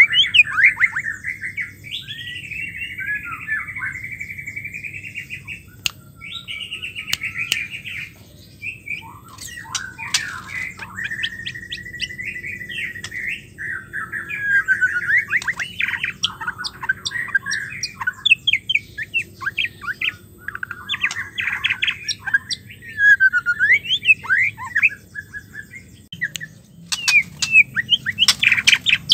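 White-rumped shama singing: a long run of varied whistled phrases, sliding notes and scratchy chattering, with a quick burst of sharp, clipped notes near the end.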